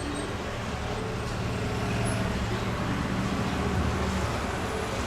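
Sony SA-D40 home theater playing music through its left channel, bypassed straight to the amplifier around the removed sound-processor IC, heard mostly as a low, rumbling bass. The low tones hold steady and shift about four seconds in.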